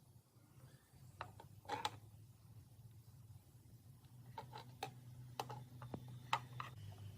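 Light clicks and taps of small parts being handled, a few about a second in and a quicker cluster in the second half, over a steady low hum.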